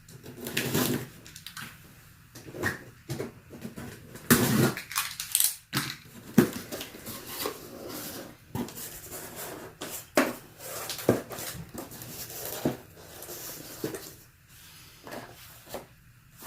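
A suspension seat kit being unpacked by hand: irregular rustling and crinkling of packaging with scattered knocks and clicks as parts are handled.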